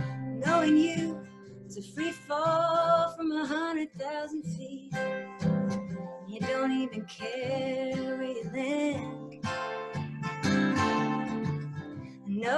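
Acoustic guitar strummed and picked as a woman sings a slow song over it, her voice rising and falling in held phrases.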